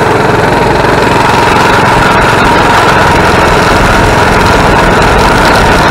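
Coleman mini bike's small single-cylinder four-stroke engine running steadily while the bike is ridden along.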